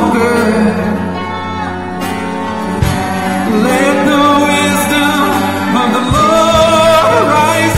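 Worship music: held chords from the band with a voice singing long, wavering notes, the melody line swelling about halfway through.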